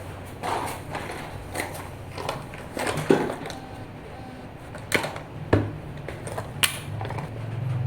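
Irregular clicks and knocks of small hard parts being handled, the sharpest about three, five and six and a half seconds in, over a steady low hum.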